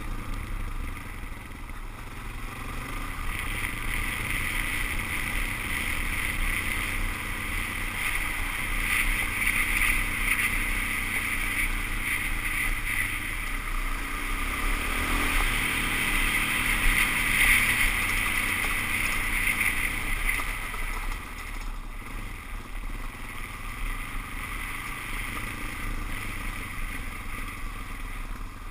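Suzuki DR-Z400S single-cylinder four-stroke engine running steadily as the bike rides along, mixed with a steady rush of wind and road noise. It eases off somewhat about two-thirds of the way through.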